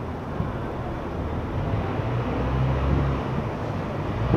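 Low, steady vehicle rumble with a low hum, growing slightly louder over a few seconds.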